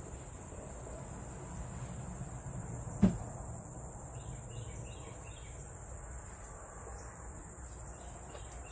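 Crickets trilling steadily in one unbroken high-pitched note, with a single sharp knock about three seconds in.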